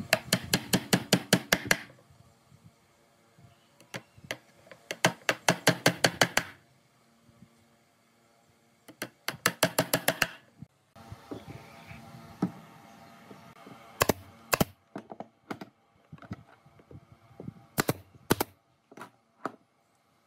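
Claw hammer driving nails into pine boards: three quick runs of light, rapid blows, about five or six a second, then a few separate knocks near the end.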